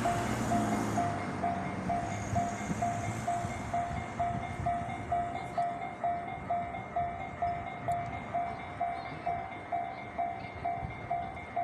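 Japanese level-crossing warning bell ringing steadily, about two dings a second. A passing train's running noise fades out in the first couple of seconds.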